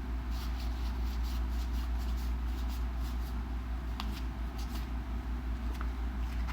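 Magic: The Gathering trading cards being handled and slid past one another while a booster pack is fanned through, with faint scattered soft ticks and rustles over a steady low hum.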